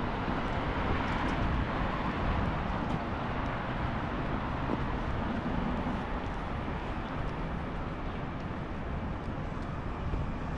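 City street traffic: a steady wash of passing vehicles, a little louder at first and easing off slightly.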